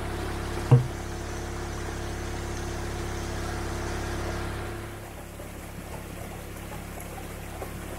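A motor hums steadily over running creek water, then drops away a little over halfway through; a sharp low thump comes under a second in.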